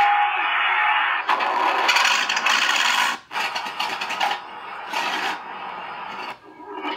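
A small speaker on a TK-26 RC tank sound board playing a sampled tank engine sound, changing in character about a second in and dropping out briefly twice.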